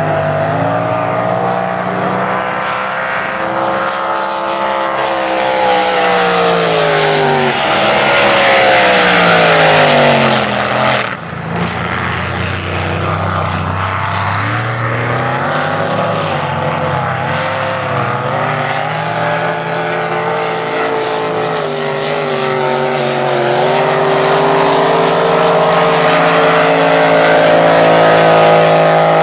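Racing powerboat engines running hard. A boat passes close about ten seconds in, its engine note sweeping down as it goes by. Another boat's engine note rises again near the end.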